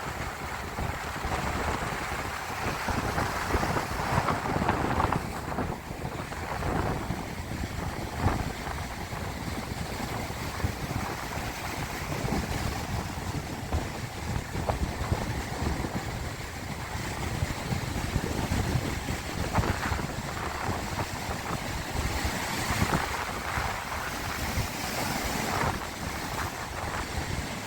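Sea waves washing continuously, swelling and easing, with wind buffeting the microphone.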